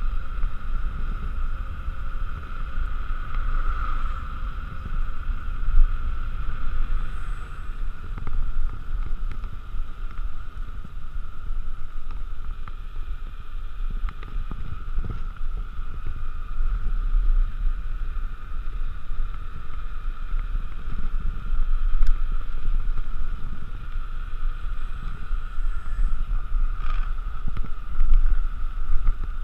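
Wind buffeting the microphone of a mountain bike descending fast on asphalt, over a steady high whirr from the bike as it rolls. There are a few brief knocks along the way.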